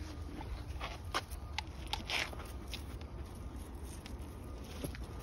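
Footsteps and scattered clicks and scuffs of walking leashed dogs along a path, over a steady low rumble of wind and handling on a phone microphone.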